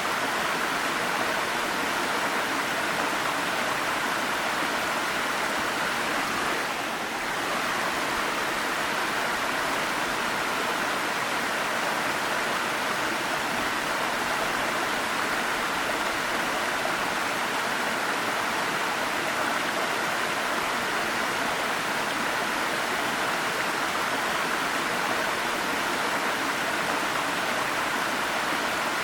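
Waterfall: water pouring and splashing in a steady rushing noise, dipping slightly for a moment about seven seconds in.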